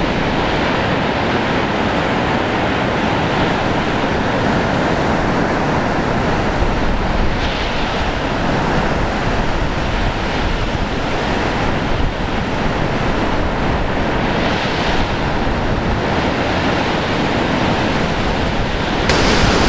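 Storm surf breaking on a shallow lake beach: a loud, steady rush of crashing waves that swells twice as bigger breakers come in.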